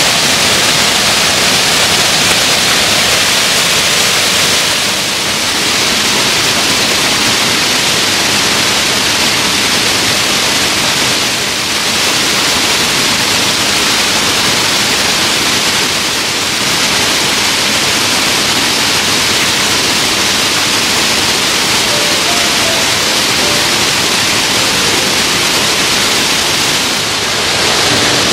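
Rushing water of a mountain stream: a loud, steady hiss of flowing water, dipping slightly in level a few times.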